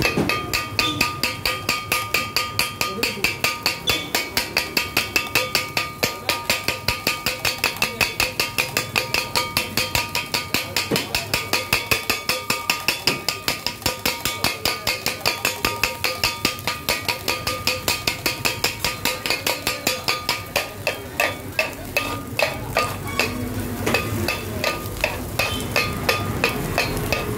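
Kothu parotta being chopped on a flat iron griddle with two steel blades: a fast, even clatter of metal on metal, about four to five strikes a second, with a ringing note. Over the last several seconds the strikes slow and become uneven.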